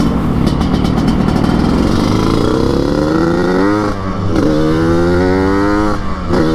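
Yamaha RX-King two-stroke single, bored out to 175 cc, with a chrome underslung expansion-chamber exhaust and an open air filter, accelerating through the gears with the raspy 'ngorok' (snoring) exhaust note it is tuned for. The pitch climbs for about three and a half seconds, drops at a gear change, climbs again, and drops once more near the end.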